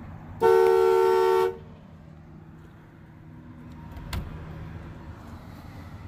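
The 1994 Chevy C1500 pickup's horn going off once, set off by accident during steering-wheel work: a steady two-note blare about a second long. A single short click follows about four seconds in.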